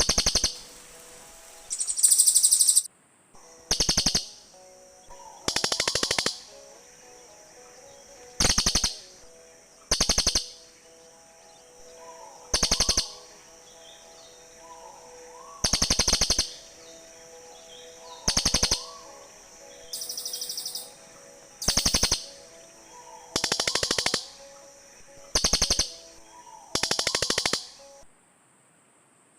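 Cililin birds calling back and forth: about fourteen short, harsh, rapidly pulsed calls, each under a second, coming every one to three seconds, over a steady high-pitched hiss.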